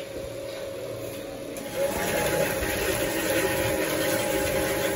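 Workshop machinery running with a steady hum, getting louder about two seconds in.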